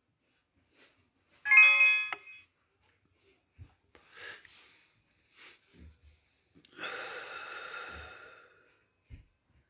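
X2 AC Plus dual balance charger giving a short electronic beep chime about a second and a half in as it starts a 12 V lead-acid charge. A softer hiss follows near the end.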